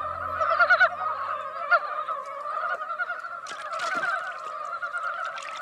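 A chorus of Dybowski's frogs calling, many quick overlapping calls at two pitches, one above the other.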